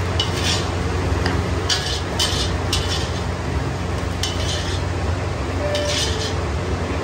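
Metal spatula and steel bowl scraping fried rice across an iron wok in about six short, sharp scrapes, over a steady low hum.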